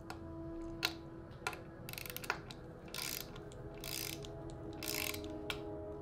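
Hand ratchet with a hex bit turning the stem faceplate bolts that clamp a road bike's handlebar, its pawl clicking in several short bursts as the handle is swung back and forth.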